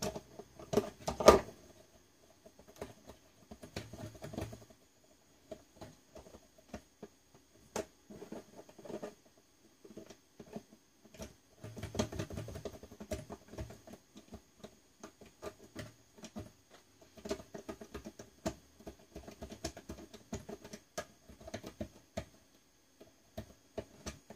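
Irregular small clicks, taps and scraping of hand tools and small metal hardware being worked, as fasteners and a tiny washer are fiddled with while removing a panel meter from a bench power supply's front panel. One sharper click about a second in is the loudest.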